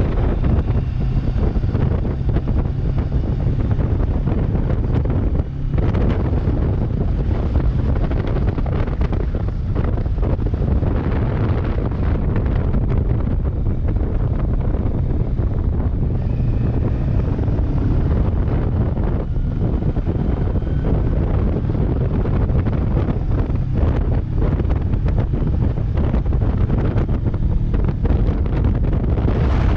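Heavy wind buffeting on the microphone of a motorcycle riding at speed, with the Kawasaki Versys 650's parallel-twin engine running steadily beneath it.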